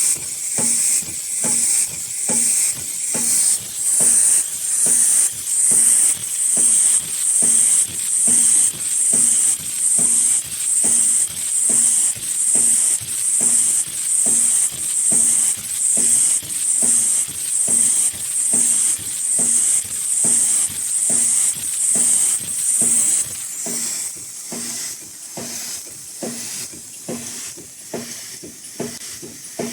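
High-speed N95 mask-making machine running: a steady cycle of hissing and knocking, a little over once a second. About 23 seconds in the loud hiss stops and the machine goes on with quieter, quicker clicking.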